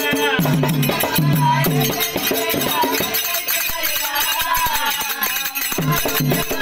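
Live music played over a loudspeaker: a repeating melody with low held notes and continuous rattling hand percussion.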